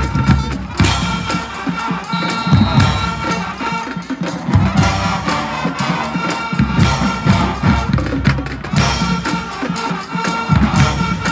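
High school marching band playing in the stands: held wind chords over repeated heavy drum beats.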